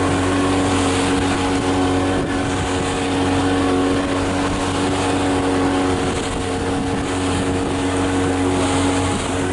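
A motorboat engine running steadily at cruising speed, with wind and water rushing past.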